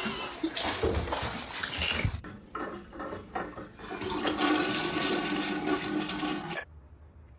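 Rushing water with a steady hiss. It breaks off briefly about two seconds in, resumes, and stops suddenly near the end.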